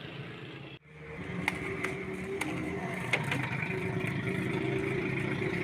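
Drinks clinking lightly as they are stacked into a fridge, several separate clicks over a steady low rumble. The sound cuts out briefly just under a second in and fades back up.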